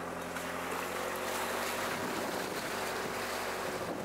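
An off-road vehicle driving, its engine running steadily under a loud rush of wind and road noise that swells in the middle.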